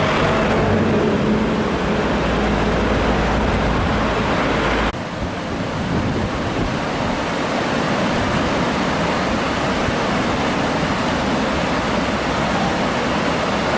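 Rushing whitewater river, a steady loud noise of water. A low rumble under it stops abruptly about five seconds in, and the water carries on alone.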